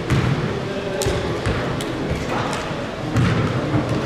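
Basketball bouncing on a gym floor, a few separate thuds among indistinct players' voices.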